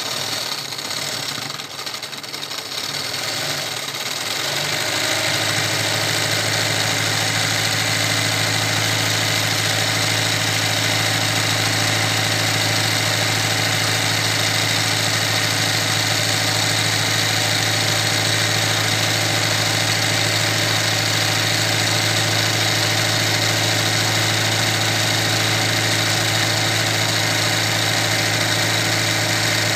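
Electric sewing machine doing machine embroidery on fabric stretched in a hoop: uneven at first, then from about five seconds in running steadily at high speed with a constant motor hum.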